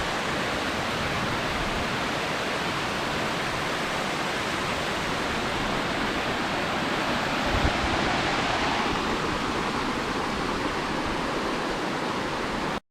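Small waterfall on a creek, water rushing and splashing as a steady, even noise. It cuts out abruptly for a split second at the very end.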